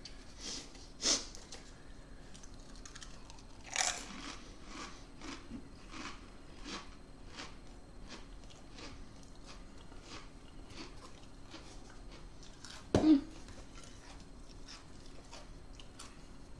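Hot Ones Pringles potato crisps being chewed: a run of short crunches, about two a second, with louder bites about a second in and near four seconds. A single sharp knock about thirteen seconds in is the loudest sound.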